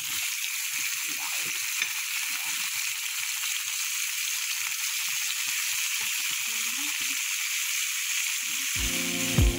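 Raw chicken pieces sizzling in hot oil in a pan, a steady frying hiss. Background music comes in near the end.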